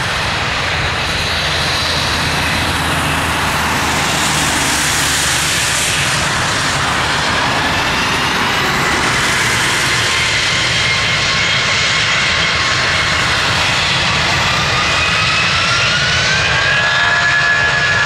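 Airbus A320's two IAE V2500 turbofan engines at takeoff power as the jet starts its takeoff roll: a loud, steady rushing noise with an engine whine that rises in pitch through the second half and levels off near the end.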